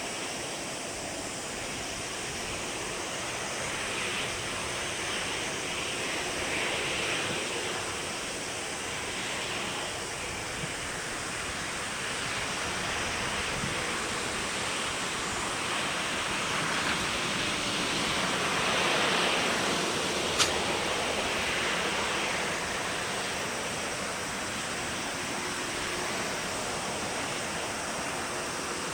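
Distant jet roar from a Boeing 747-8's four GEnx turbofans: a steady rushing noise that swells and eases, with one sharp click about twenty seconds in.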